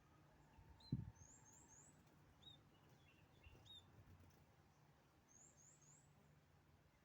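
Faint high chirping of firefinches: two quick runs of three short notes, a few single short call notes between them, and a dull low thump about a second in.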